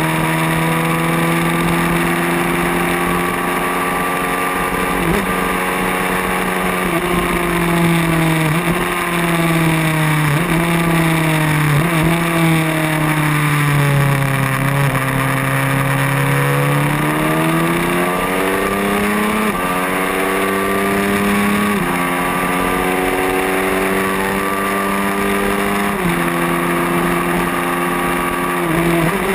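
Racing motorcycle engine at high revs, heard onboard with wind rushing past the microphone. Its pitch climbs and drops sharply at each gear change, several times. Midway it falls away slowly, then climbs back up.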